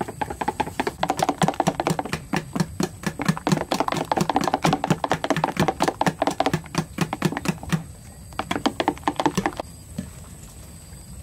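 Batter being beaten by hand, a wire whisk in a stainless steel bowl and a metal spoon in a plastic jug, clicking rapidly at about five strokes a second. The clicking stops near the end.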